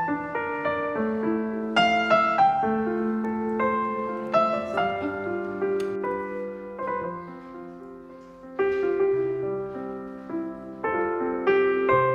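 Background piano music: a melody of single notes over held lower chords.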